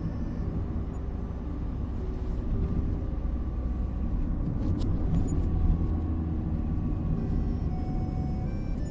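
Steady low rumble of a car driving, with engine and road noise, under a soft melody of slow held notes. A brief click sounds about five seconds in.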